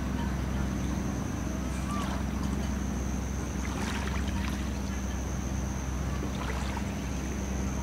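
Steady low hum of a boat engine running in the harbour, with a thin steady high whine over it and a few faint chirps and clicks.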